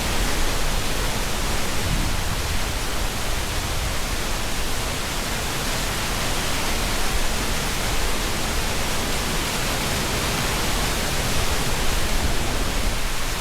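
Steady rushing of a mountain river, the Boyana River flowing fast over rocks, an even roar of water.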